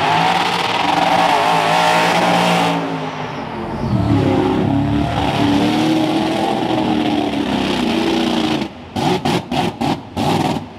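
Mud truck engine revving hard, its pitch rising and falling, as the truck drives through a water-filled swamp pit and splashes through it. Near the end the sound turns choppy and cuts in and out.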